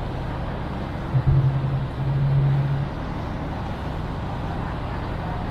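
Ambient background noise inside a busy building: a steady low rumble, with a louder low hum for about a second and a half, starting about a second in.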